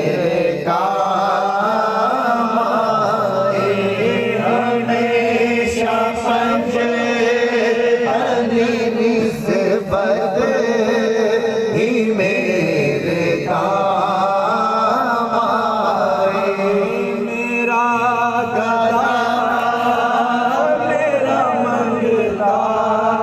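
Naat singing: chanted vocal melody over a steady hummed drone, continuous and even in level.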